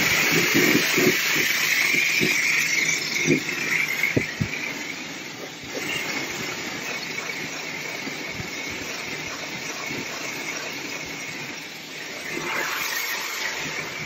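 High-pressure wand at a self-service car wash spraying water into the plastic interior of a portable fridge: a steady, high hiss of the jet, which softens a little after about five seconds.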